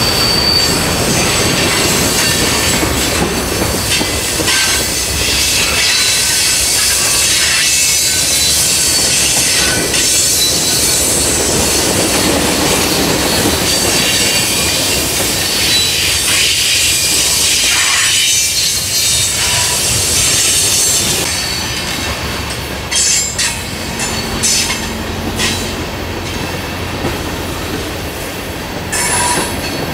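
A train rolling past, its wheels squealing on the rails with a steady rumble. After about two-thirds of the way through the squeal dies down, leaving sharp clicks as the wheels pass over rail joints.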